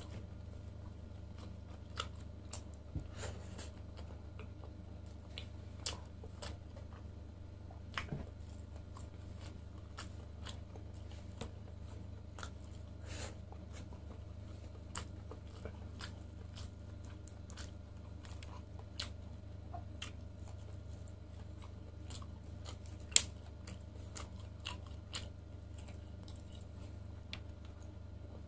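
Close-up mouth sounds of chewing and biting grilled lamb chop meat: many small wet clicks and crackles at irregular moments, with one sharper click about two thirds of the way in. A steady low hum runs underneath.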